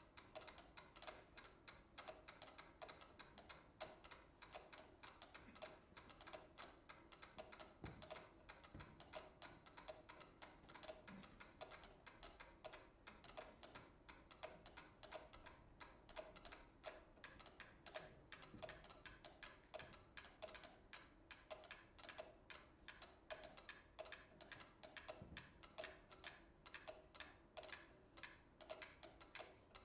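Several mechanical pyramid metronomes ticking together at different tempos, their quiet clicks overlapping into a dense, shifting pattern of many ticks a second.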